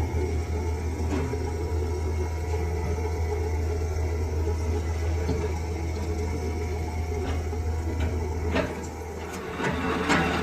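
Lathe running with a steady low hum, with a few faint clicks toward the end.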